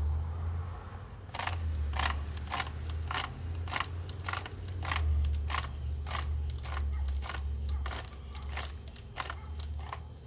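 Echo Speed Feed trimmer head being wound by hand to load new trimmer line: an even run of ratchet clicks, about one every half second, starting over a second in, over a low rumble.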